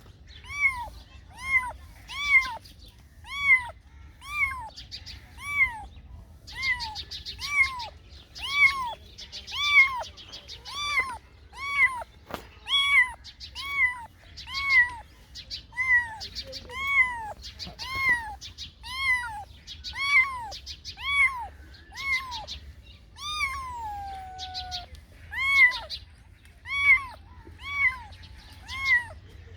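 A cat meowing over and over: short, high-pitched meows that rise and fall, coming about every half second to second, with one longer, falling meow past the middle.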